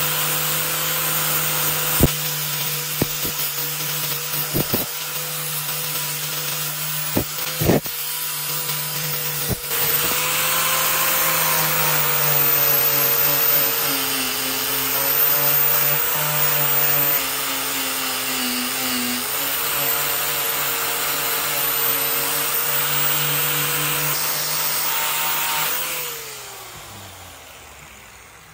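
Handheld electric power tool running steadily with abrasive rubbing noise as it works a part, with a few sharp knocks in the first ten seconds. Near the end it is switched off and its motor winds down, the pitch falling away.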